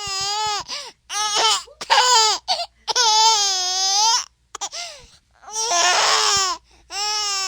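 A baby's voice in a series of loud, high-pitched squealing calls, each held for up to about a second with short breaths between.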